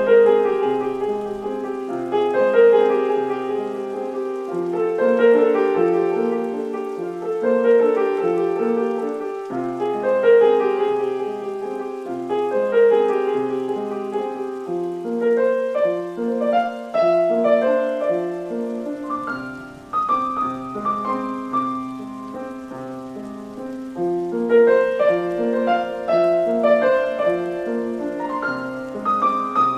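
Improvised solo piano: a repeating arpeggiated figure comes round about every two and a half seconds, and from about twenty seconds in, higher notes ring above it.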